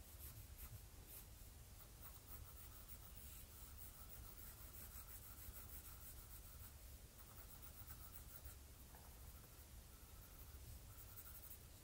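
Faint scratching of a pencil drawing short strokes on paper.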